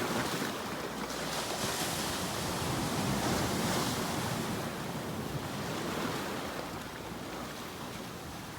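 Ocean waves washing onto the shore, a steady surf that swells a couple of seconds in and eases off toward the end.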